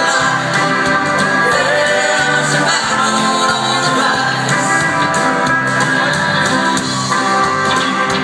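Music: a song with a singing voice over instrumental accompaniment, playing steadily.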